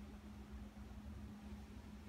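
Quiet room tone: a faint, steady low hum over soft hiss.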